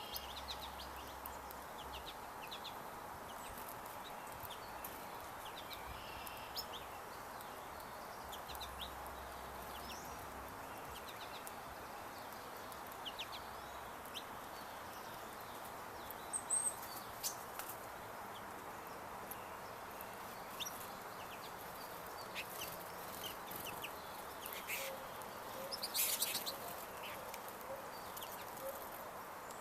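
Small birds chirping at a feeder, with scattered short calls over a steady background hiss and a few sharp knocks about halfway through and near the end.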